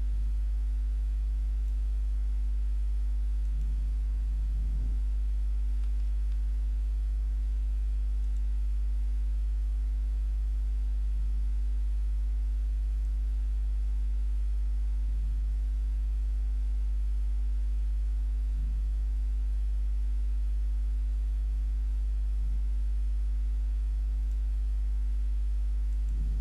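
Steady low electrical hum with a ladder of fainter overtones above it, typical of mains hum picked up in a voice recording. A few faint short sounds come now and then.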